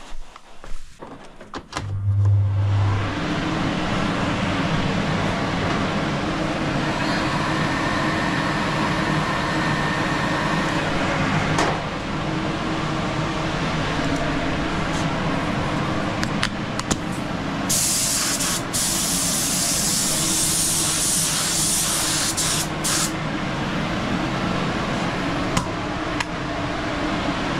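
Air compressor starting up about two seconds in and running steadily, with the hiss of air from a gravity-feed spray gun triggered in several bursts later on.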